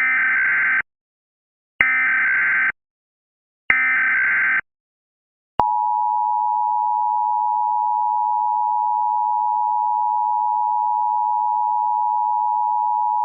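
Emergency Alert System tones: the three short data bursts of a SAME header, each just under a second long and about a second apart. About five and a half seconds in, the steady two-tone EAS attention signal starts and holds.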